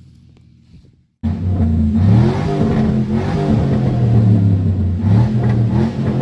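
2003 Chevy Avalanche's V8 running loud through an exhaust dumped right after the catalytic converters, with no mufflers or tailpipe, revved up and down several times. It comes in suddenly about a second in, after a faint low hum.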